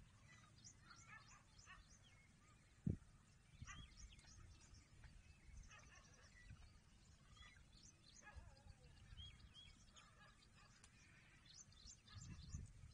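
Faint background chirps and calls of small wild birds, scattered and irregular, with a single low thump about three seconds in and a low rumble near the end.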